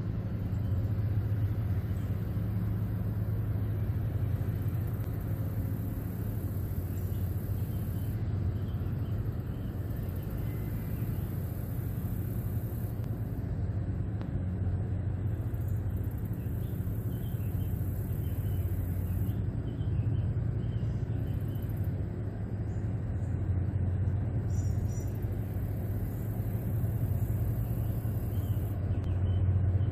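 Diesel engines of a large river towboat pushing a loaded barge tow, heard as a steady low rumble with no change in pitch.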